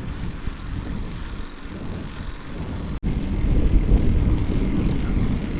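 Wind buffeting an action camera's microphone during a bicycle ride, a steady low rumble. It breaks off for an instant about three seconds in and comes back louder.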